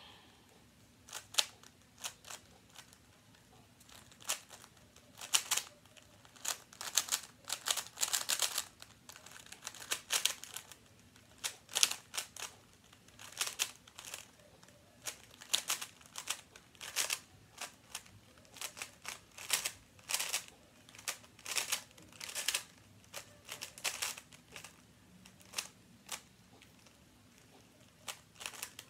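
Rubik's Cube being turned fast in a timed solve: irregular runs of plastic clicks and clacks as the layers are twisted, broken by short pauses.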